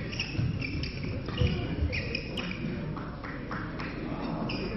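Badminton rally on an indoor court: rackets strike the shuttlecock in sharp clicks, and court shoes squeak in short high chirps on the floor.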